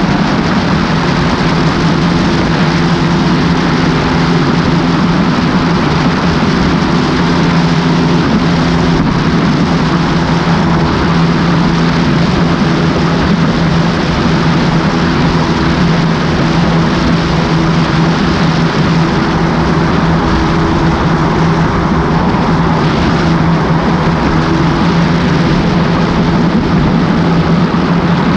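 Mercury Optimax two-stroke outboard running steadily at cruising speed on a Lund 1875 Pro-V bass boat, a constant low drone over a steady rush of wind and water past the hull.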